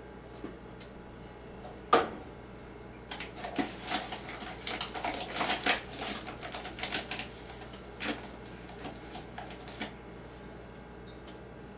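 Kitchen containers and utensils handled while measuring out baking ingredients: a sharp knock about two seconds in, then several seconds of clattering, rustling and tapping, with another knock near the end.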